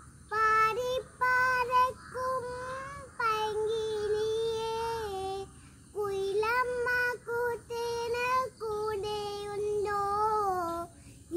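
A young girl singing a Malayalam Onam song (Onappattu) solo, without accompaniment, in held, gliding phrases with a brief breath pause about halfway through.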